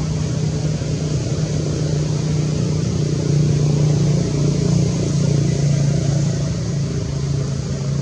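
A steady low engine drone, running without a break and swelling slightly midway.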